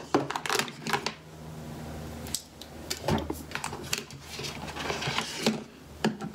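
Scattered light clicks and taps of makeup tools and containers being handled, including a flat eyeshadow brush.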